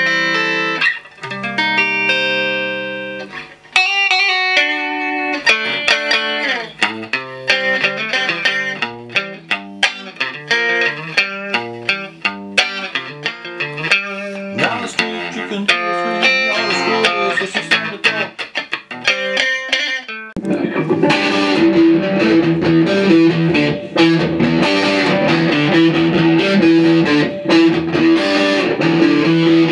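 Electric guitar (Fender Stratocaster) played through a Marshall Valvestate 8040 combo amp on its clean normal channel, treble full up with bass and middle raised: picked single notes and chords, each note separate. About twenty seconds in the sound changes abruptly to a denser, more continuous tone.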